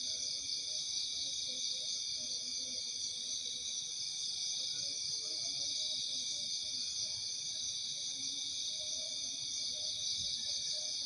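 Night-time insect chorus: a steady, unchanging shrill of many insects, such as crickets, in several high pitches at once, with faint scattered low calls underneath.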